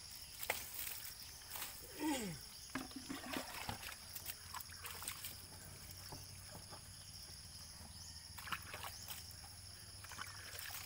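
Hand-washing a motorcycle: water dipped with a plastic pitcher from a basin and splashed under the frame, with light sloshing, trickling and scattered knocks and clicks. Steady high insect drone behind, and a brief falling call about two seconds in.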